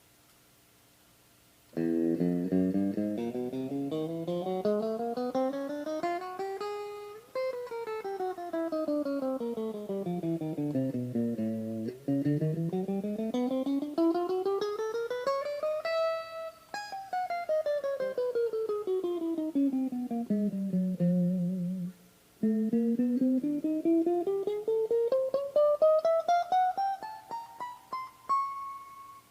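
Fernandes FST-70 electric guitar playing fast single-note runs, starting about two seconds in and sweeping up and down the neck over about two octaves several times, with a short break a little over two-thirds of the way through before a final climb.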